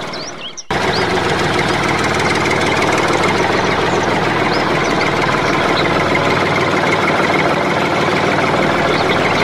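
Tractor engine running steadily. It drops out briefly and picks up again just under a second in.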